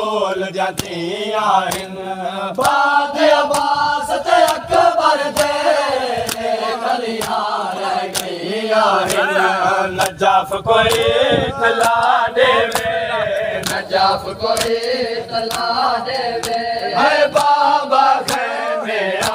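Men chanting a noha, a Shia mourning lament, in unison, with the mourners' chest-beating (matam) slaps keeping a steady beat about twice a second.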